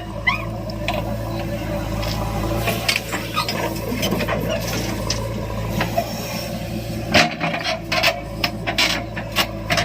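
A diesel engine running steadily under loud scraping and rasping, with sharp knocks and clatters, most of them in the last few seconds.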